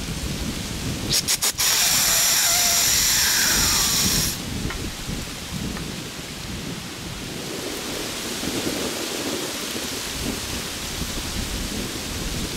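Strong wind buffeting the microphone with a steady low rumble. About a second in come three sharp knocks, then a loud rushing scrape lasting nearly three seconds, the loudest thing here.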